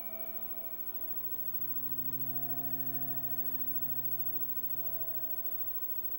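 Slow, soft music of long held notes overlapping one another, with a low note coming in about a second in and fading before the end.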